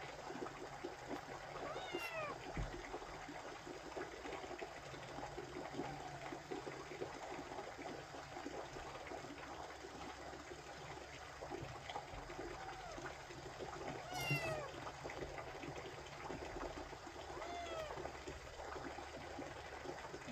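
Orphaned kittens meowing: thin, high calls repeated several times a few seconds apart, the loudest about two-thirds of the way through, over a steady faint hiss.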